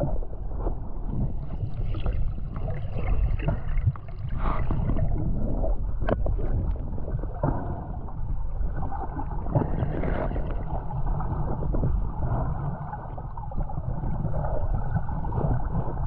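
Muffled sloshing and gurgling water heard through a camera in the water during snorkeling, with a few sharp knocks against the housing, one about six seconds in.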